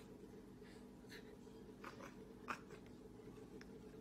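Near silence: faint room hum with a few soft, short ticks, the clearest about two and a half seconds in.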